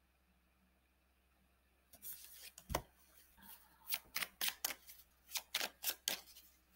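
Tarot deck being shuffled by hand: a quiet start, then from about two seconds in a run of quick, crisp card snaps and riffles, with one low knock a little later.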